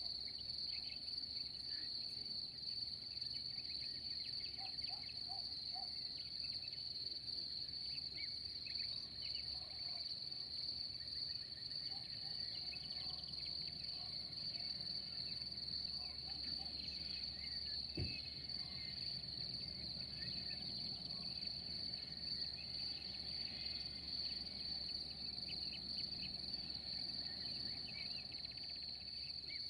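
Crickets chirping in one steady, high, continuous trill, with scattered faint short chirps over it. A single sharp click about eighteen seconds in.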